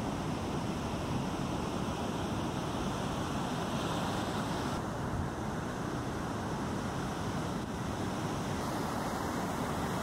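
Steady rush of heavy surf from a typhoon swell breaking and washing up the beach, shifting in tone about five seconds in.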